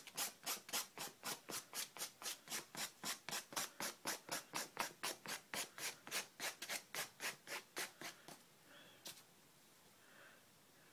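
Knife tip scratching quick, even strokes into wet watercolour paper, about four or five a second, scoring grass lines into the paint. The strokes stop about eight seconds in, with one more a second later.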